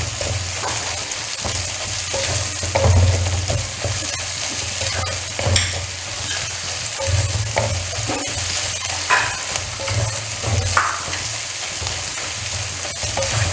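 Onions with ginger and garlic frying in coconut oil in a kadai, sizzling steadily, with a spatula scraping and stirring through them now and then; the onions are part-way wilted.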